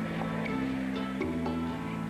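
A live rock band playing without vocals: held guitar and bass chords that change every second or so, with regular sharp percussion hits.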